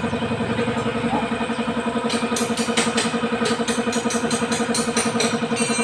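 An engine idling steadily nearby, with a fast even pulse, while short sharp metallic clicks and clinks sound over it.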